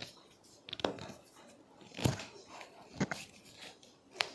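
Four short, sharp clicks about a second apart from hands working on a patient's body during a chiropractic manipulation.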